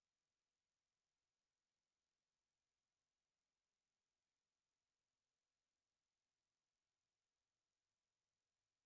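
Synthetic crow-repellent tone: a very high-pitched, barely audible whine near the top of hearing that flutters slightly. It is built from crow alarm calls, sped up about three times and shifted into their overtone range.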